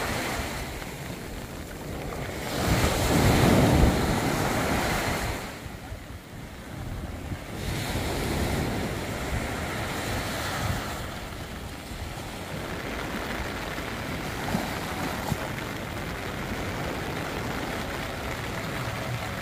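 Small waves breaking and washing up a sandy beach, swelling and easing, loudest about three seconds in.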